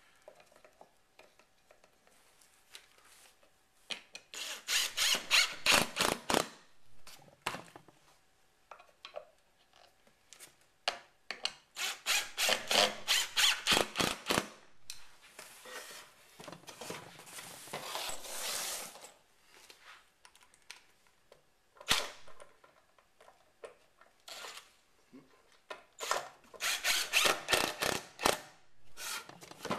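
Cordless impact driver driving screws into a wooden box in several bursts of a couple of seconds each, its rapid hammering plain in each burst, with a few light knocks of wood being handled between them.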